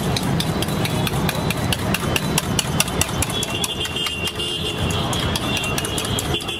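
Spoon beating eggs in a steel bowl, rapid irregular clinks of metal on metal, over a steady low rumble.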